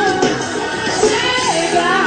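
Forró band playing live, with accordion in the mix and a melody line that slides in pitch over a full band backing.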